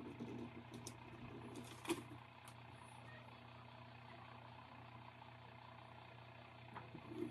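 Near silence over a faint steady low hum, with soft rustles of a vinyl decal's transfer sheet being handled and a light tap about two seconds in.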